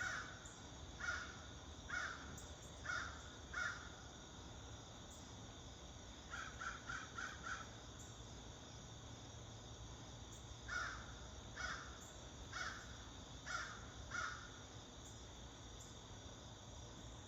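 Crows cawing in series of spaced caws, with a quick run of four caws about six seconds in and another series of five or so later. Under the caws there is a steady hum from a running air-conditioning unit and a thin, steady insect drone.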